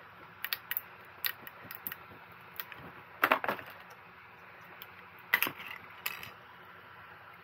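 Scattered plastic clicks and short scrapes as a 3D-printed duck is pried off the printer bed with a plastic scraper and its beak supports are broken away, with two louder clatters about three and five and a half seconds in.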